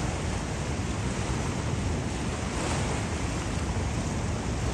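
Steady rushing of moving water, with wind buffeting the microphone.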